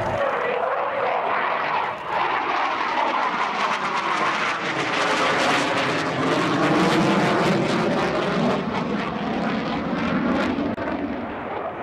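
Eurofighter Typhoon's twin turbofan jet engines: a loud, steady rushing roar whose tone sweeps down and back up as the fighter passes.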